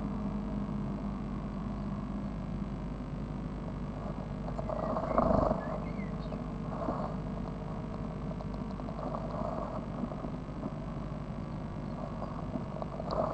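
Nestlings in a nest box shuffling and preening, giving soft rustling and scratching bursts against the nest material, the loudest about five seconds in and a few more later, over a steady electrical hum from the nest-box camera.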